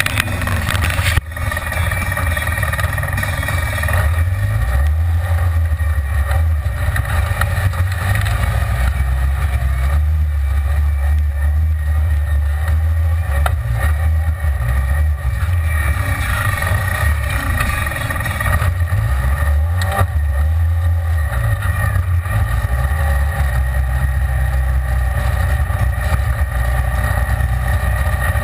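Side-by-side UTV's engine running while it drives a rough dirt trail, heard from inside the open cab: a steady low drone that swells and eases with the throttle. A few sharp knocks come over bumps, one near the start and one about two-thirds of the way through.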